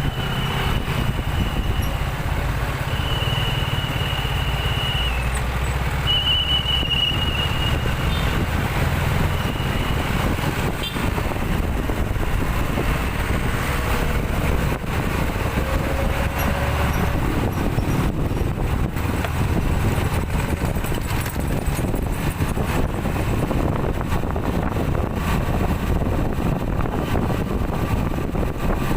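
City road traffic: a steady rumble of motorcycle and car engines and tyres. A thin high squeal comes and goes about four times in the first ten seconds.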